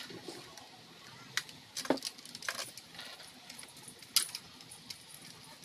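Hard plastic clicking and clacking from the jointed body segments of a toy remote-control rattlesnake as it is bent and handled, with a few sharper knocks, the loudest about four seconds in.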